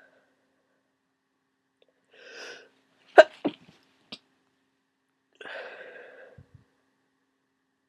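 A person with a heavy, runny head cold sneezing: a drawn-in breath, then one sharp wet sneeze a little after three seconds in with a smaller burst right behind it, and another long breath a couple of seconds later.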